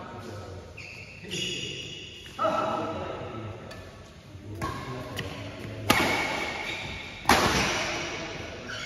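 Badminton rackets striking the shuttlecock during a rally: several hits, the two sharpest and loudest about six and seven seconds in, each ringing on in the large metal-walled hall.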